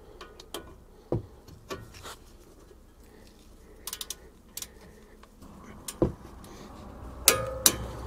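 Sporadic metal clicks and knocks from hand tools and brake parts being handled at a car's front brake, with two ringing metallic clinks close together near the end.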